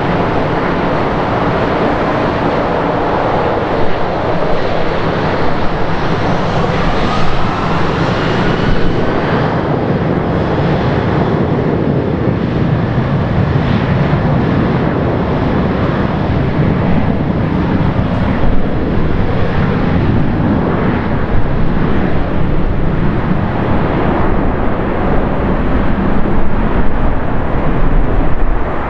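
Jet engine noise from an Airbus A350-900's Rolls-Royce Trent XWB turbofans as the airliner comes in to land, with a faint rising whine in the first third. About halfway through it touches down, and the low rumble grows stronger as it rolls out.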